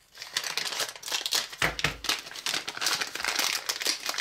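Foil blind-bag packet crinkling as it is torn open and handled, in a dense run of irregular crackles, with a low bump about halfway through.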